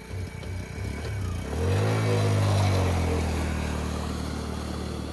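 Small commuter motorcycle engine putting unevenly at idle, then revved about a second and a half in as it pulls away through floodwater, water splashing around it; the engine note then falls slowly as it rides on.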